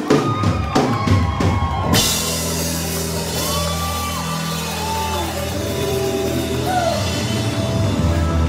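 Live rock band playing: drum kit hits with electric guitars, then about two seconds in a cymbal crash into a loud, sustained full-band passage.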